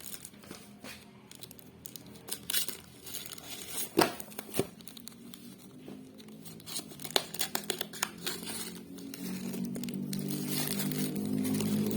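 Parcel packaging being torn open and crumpled by hand in a series of sharp rips and crackles. Background music fades in and grows louder over the last few seconds.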